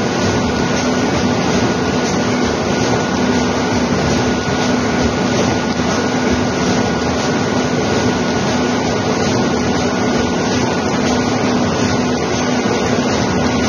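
Large-format roll printer running as it prints and feeds out a sheet, a loud steady mechanical whirr with a low hum and a thin high whine held throughout.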